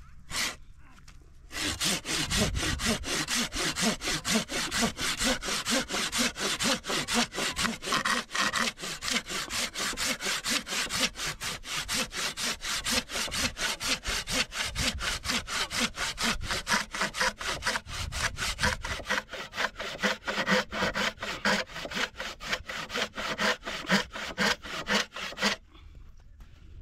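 Rapid rhythmic back-and-forth rasping strokes, about four a second, starting about a second and a half in and stopping shortly before the end.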